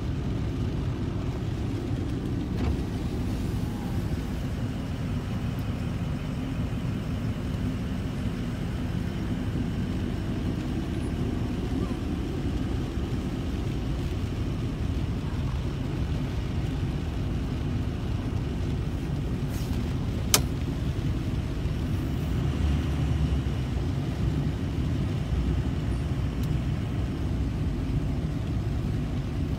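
Steady low rumble of a vehicle running, heard from inside its cab, with one sharp click about two-thirds of the way through.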